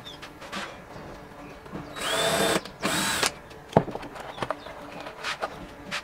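DeWalt 20V cordless driver run off-load twice in quick succession, a short motor whine each time that rises as it spins up, about two seconds in. A few light clicks follow.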